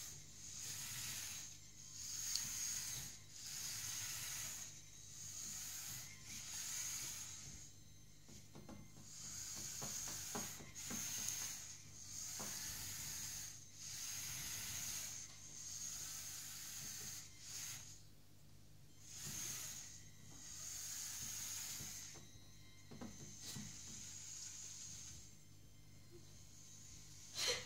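Electric drive motor and gears of a Lego Technic race truck whining in repeated bursts of a second or two, starting and stopping over and over as the truck is driven back and forth and turned on a tabletop. A sharp click near the end.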